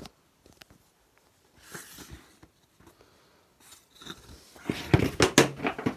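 A cardboard shipping box being handled while someone picks at its packing tape: a few faint scrapes and rustles, then a cluster of louder knocks and rustling near the end.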